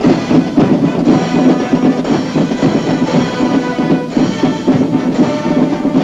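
Military band music with drums and percussion, playing with a steady beat.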